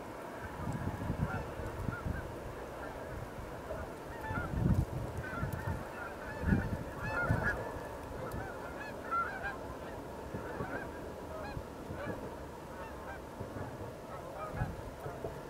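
A flock of geese honking, many overlapping calls that are thickest in the middle and thin out toward the end, over low gusts of wind rumbling on the microphone.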